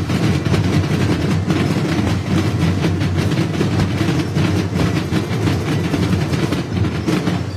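Two drumlines of marching field drums played at once, a loud, dense, unbroken barrage of stick strokes.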